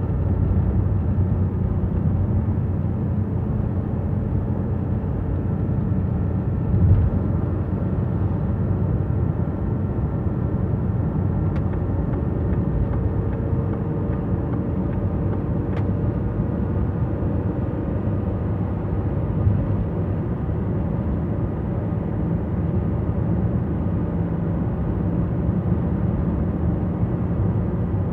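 Steady car cabin noise while driving: engine and road rumble heard from inside the moving car, with one short thump about seven seconds in.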